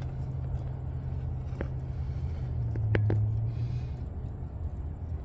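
Steady low engine hum that swells slightly about three seconds in, with a few light clicks over it.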